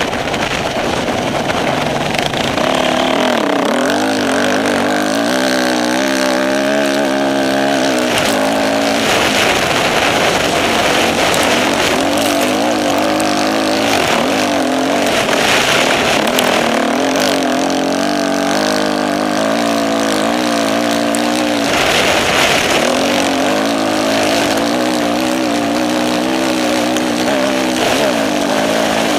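Off-road motorcycle engine being ridden hard, the revs rising and falling over and over with the throttle, over a constant rush of noise.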